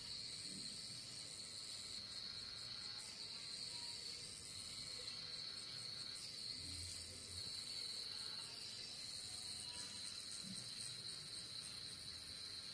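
Pen-style rotary tattoo machine running with a faint, steady high whine while its needles work pigment into the skin.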